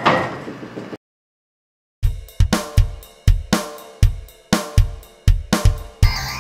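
A short tail of echoing hallway noise fades out, then a second of dead silence. A music intro starts with drum kit hits and cymbals in a steady beat, and more instruments come in near the end.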